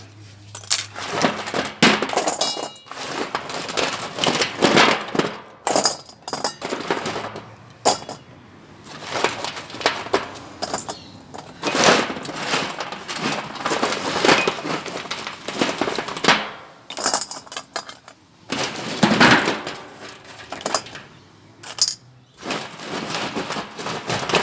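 Scrap steel and copper from stripped microwave fan motors clattering and clinking as the pieces are handled and dropped, in a long run of irregular metallic rattles and knocks.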